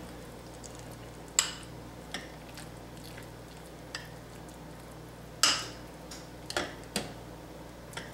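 Metal spoon clinking against small glass bowls of creamy chicken filling as it is stirred: about seven short, sharp clinks at uneven intervals, the loudest about halfway through, over a faint steady hum.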